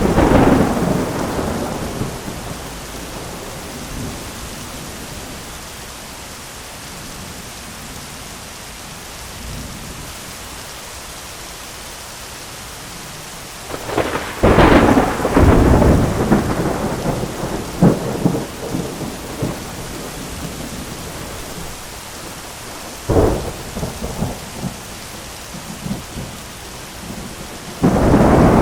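Heavy rain pattering steadily on an umbrella, with loud thunder crashes breaking through: one at the start, a long rumbling, crackling peal about halfway through, a sharp crack about two-thirds in, and another crash at the end.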